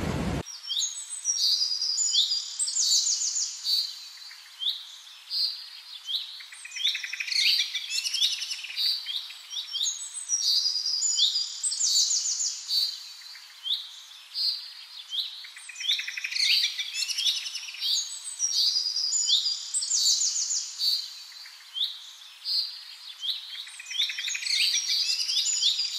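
Small birds singing: quick high chirps and short rapid trills, phrase after phrase without a break.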